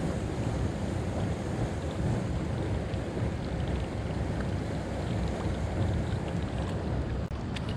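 Steady rush of wind buffeting the microphone, mixed with flowing river current.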